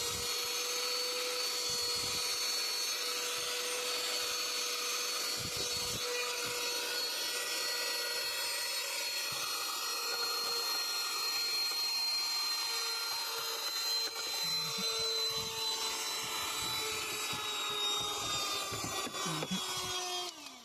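Small cordless handheld vacuum cleaner running with a steady high whine as its small motor and fan suck dust from the corners of a car dashboard. Near the end it is switched off and the whine falls away.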